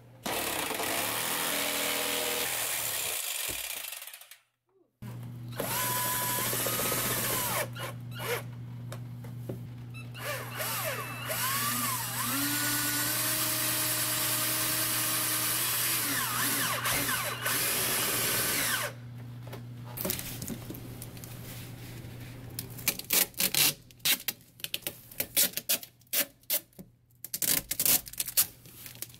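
A jigsaw cutting a vent opening in pine paneling, then a cordless drill driving screws, its motor pitch rising and falling with the trigger. In the last third, scattered crinkling and clicks from foil flexible duct being handled.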